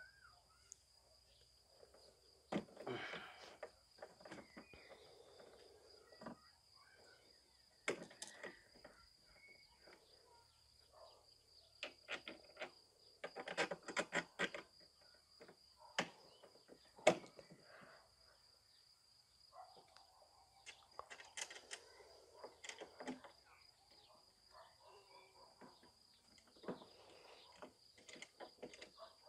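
Intermittent handling noises of the cordless lawn mower's parts being fitted together: scattered clicks, knocks and short rustles, with one sharp knock about halfway through. A faint steady high-pitched tone runs underneath.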